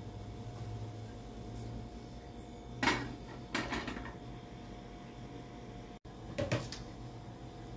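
A few short knocks and clatters of cookware against a flat griddle on a portable gas stove: two close together about three seconds in and a third shortly after a cut, over a steady low hum.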